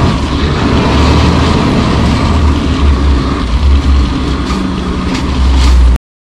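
Kenworth C500 heavy-haul truck driving on a gravel road: its Cummins ISX diesel engine runs steadily under way with a deep rumble, mixed with tyre and road noise. The sound cuts off suddenly near the end.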